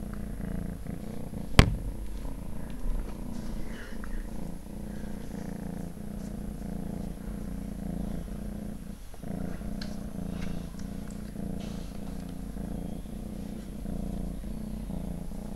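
Steady low hum from a small running appliance, with one sharp click about a second and a half in and a few faint ticks later.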